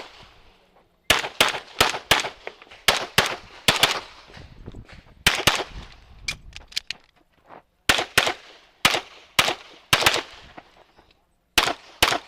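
A Metrillo "The Master" Standard-division semi-automatic pistol firing about eighteen shots, mostly in quick pairs, in strings with short pauses between groups, loud and close from the shooter's own position.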